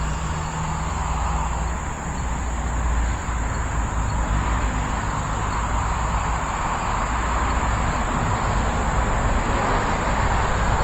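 Electric RC plane's motor and propeller buzzing as it flies, swelling and fading a little as it passes, with wind rumbling on the microphone and a steady high chirring of crickets.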